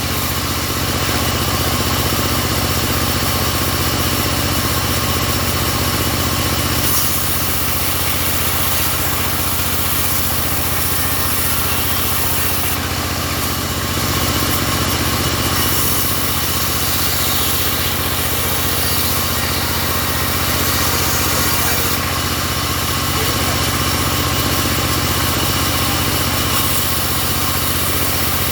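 Engine-driven sawmill running steadily, with a high hiss on top that grows and fades every few seconds.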